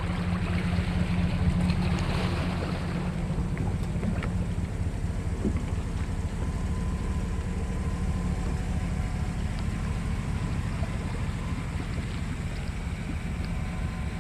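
Boat's outboard motor running at a steady speed: a constant low engine drone with water rush and wind noise over it, the rush strongest in the first few seconds.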